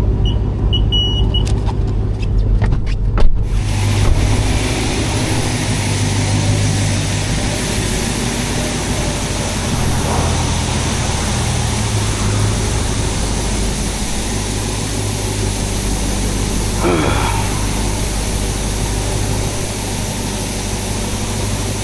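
Touchless car wash starting on a 2021 Dodge Charger Hellcat, heard from inside the cabin. A few keypad beeps come first, then a knock about three seconds in, and then the wash's water jets spray against the car as a steady loud hiss. Underneath, the car's supercharged 6.2-litre HEMI V8 idles with a low hum.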